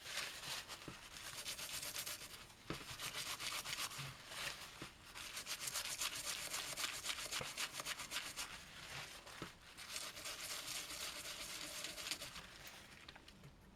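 Rapid scrubbing strokes on a circuit board as fresh solder joints are cleaned of flux residue with isopropyl alcohol, in several bouts with short pauses between.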